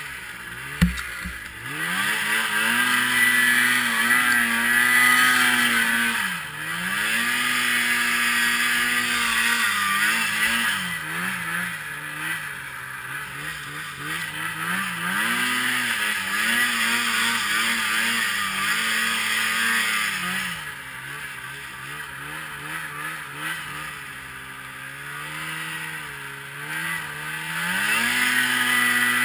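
Polaris IQ Shift 550 snowmobile's fan-cooled two-stroke twin revving up and easing off again and again as the throttle is worked, with a sharp knock about a second in.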